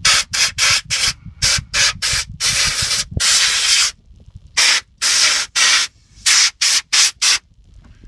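Pressurised spray hissing out of a long copper nozzle tube in about sixteen short blasts, two of them longer, around two and a half and three and a half seconds in. The blasts are flushing metal filings and crud out of backhoe brake parts.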